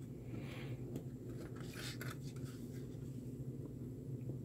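Faint scratching and rubbing as fingers handle and feel the surface of a brass piezo buzzer disc, over a steady low hum.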